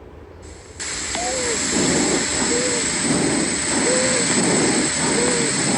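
Recorded chest breath sounds with a monophonic wheeze: a single musical tone that rises and falls on each breath, heard four times about 1.3 seconds apart over breath noise and a steady recording hiss that starts about a second in. A monophonic wheeze is the sign of a local obstruction of one bronchus, such as a tumour, foreign body or mucus plug.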